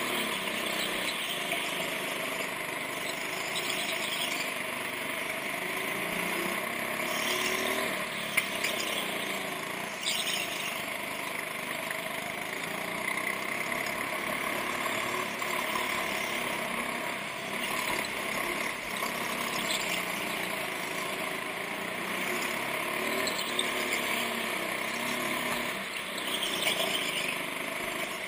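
Go-kart engine running hard, its pitch rising and falling with the throttle through the corners, with tyres squealing on the track surface several times. Once, a little past eight seconds in, there is a single sharp knock.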